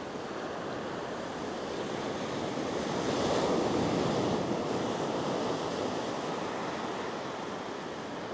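Ocean surf breaking and washing up the beach, swelling to its loudest about three to four seconds in and easing off again.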